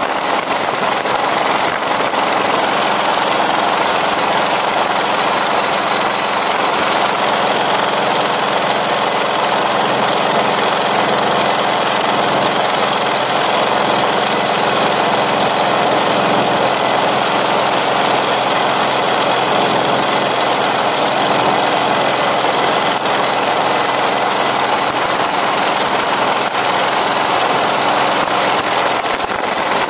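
Hirth F33 single-cylinder two-stroke engine of a MiniMax ultralight idling steadily on the ground.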